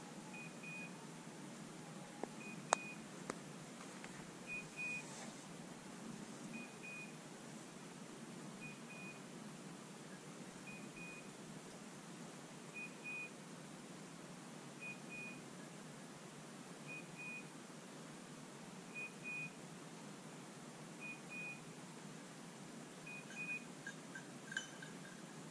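Hunting dog's beeper collar giving its point signal: a short double beep repeating about every two seconds, the sign that the English setter is standing still on point. A single sharp click sounds about three seconds in.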